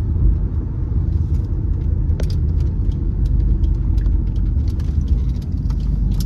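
Holden Commodore with a supercharged L67 3.8-litre V6 driving along: a steady low rumble of engine and road, with scattered light ticks and rattles.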